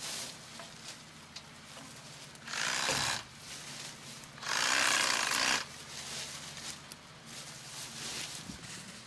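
Brush and blackberry vines rustling and tearing as they are pulled away by hand, in two bursts: a short one about two and a half seconds in and a longer one near the middle, over a low steady hum.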